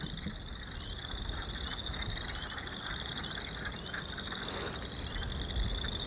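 Chorus of spring peepers: many short, high-pitched rising peeps overlapping over a steady high ringing from the rest of the calling frogs. Wind rumbles on the microphone underneath.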